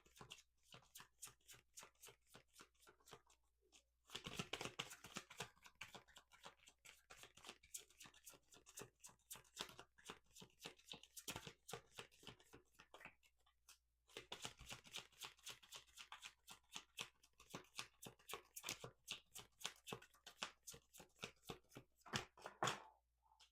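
A deck of oracle cards being shuffled by hand: faint, rapid papery clicks and riffles in three stretches, with short pauses about four seconds in and about fourteen seconds in.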